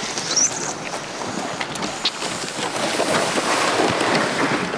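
Old snowmobile being dragged by hand over snow and bare dirt: a steady rough scraping of its body along the ground, with crunching underfoot.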